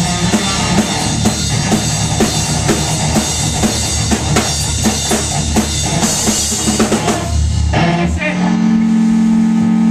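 Garage band playing together: a drum kit with bass drum, snare and cymbals keeping a steady beat under amplified electric guitars. About eight seconds in the drums stop and a held low guitar note rings on.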